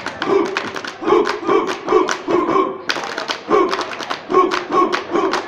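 Group body percussion: several performers slapping their thighs and bodies and clapping together in a fast, rhythmic run of short, sharp strikes.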